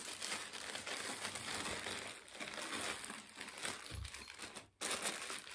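Plastic courier mailer bag crinkling and rustling as it is cut open with scissors and a plastic-wrapped package is pulled out of it.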